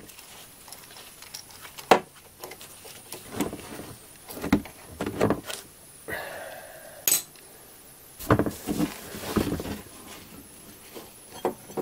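Scattered metallic clinks and knocks of a socket tool, bolt and water pump as the last pump bolt comes out and the loose pump is worked free of the engine block, with a sharp click about 2 s in and another about 7 s in and a cluster of knocks after about 8 s.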